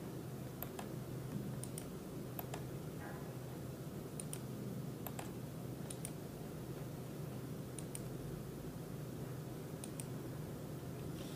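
About a dozen scattered, irregular clicks of computer input at a desk, some in quick pairs, over a steady low room hum.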